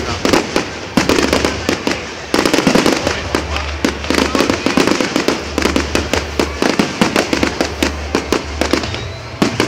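Aerial firework shells bursting in rapid succession, many bangs a second over continuous crackling, with no break in the barrage.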